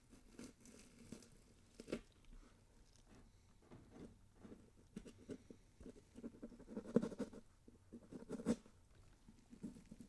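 Horror sound effect of irregular crunching and crackling clicks, growing denser and louder around the middle and with a sharp crack near the end.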